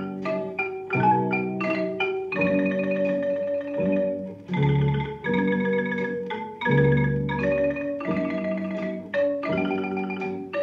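Music playing from a vinyl LP record on a turntable: an instrumental passage of a Thai popular song, a run of quick, separate pitched notes over a bass line.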